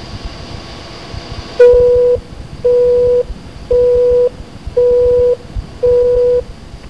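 Telephone busy signal on the line: five even beeps of one steady tone, about one a second, starting near two seconds in after a stretch of line hiss.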